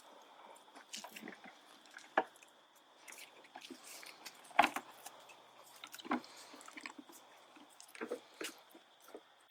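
Goose decoys and gear being handled: rustling with scattered sharp knocks and clacks, the loudest about two, four and a half and six seconds in. A steady high insect drone runs underneath.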